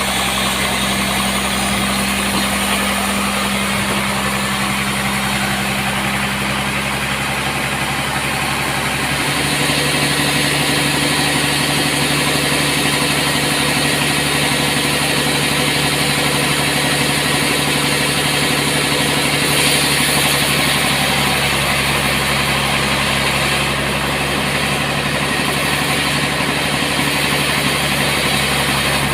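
Sawmill machinery running steadily. About nine seconds in its tone shifts and a higher hiss grows, then holds.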